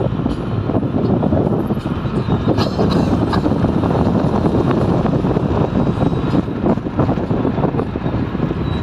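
Road noise of a moving car heard from inside: a loud, steady rumble of tyres and wind, with scattered light clicks and rattles.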